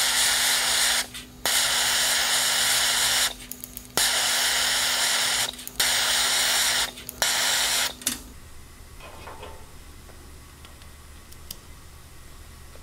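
A heating tool hisses as it heats a differential carrier bearing so the bearing can be fitted. The hiss comes in five long bursts with short breaks, over a steady low hum, and stops about eight seconds in.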